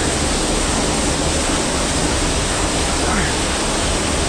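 Waterfall: falling water rushing in a steady, loud, even wash of noise.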